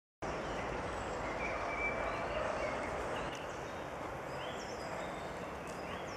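Live outdoor woodland sound: a steady rushing background noise with faint bird chirps now and then. It cuts in suddenly a moment after the start.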